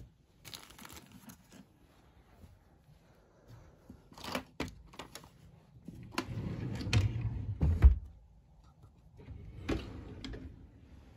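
Household handling sounds: a series of clicks and knocks, with a louder low rumbling stretch in the middle that ends in a sharp knock.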